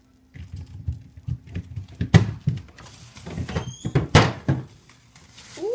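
Plastic bags rustling and bumping as they are moved about in a fridge, with guinea pigs wheeking: a few short high squeals midway and a rising squeal near the end.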